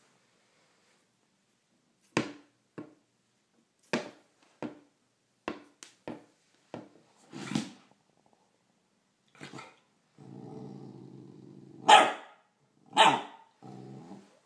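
Puppy barking in a string of about ten short, sharp yaps, then growling steadily for a second or two, broken by two louder barks near the end and a last short growl.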